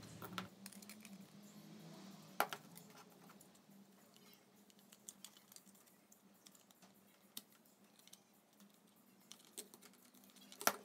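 Scattered light clicks and taps of a small heat gun's plastic housing and metal parts being handled and fitted together, with two sharper knocks, about two and a half seconds in and near the end.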